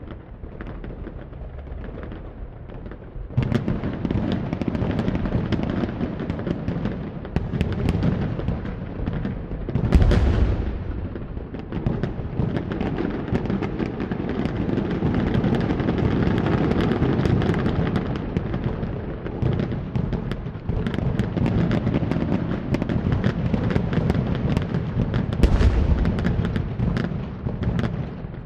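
Fireworks display: a dense, continuous crackle of many small pops, growing louder about three seconds in, with two heavy booms, one about ten seconds in and one near the end.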